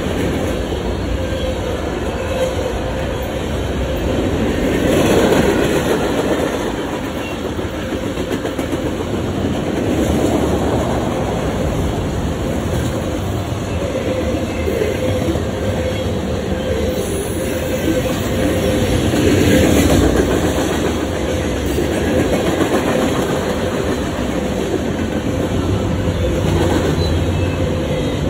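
Freight train cars rolling past close by: a steady rumble of steel wheels on the rails that grows louder every few seconds as cars go by.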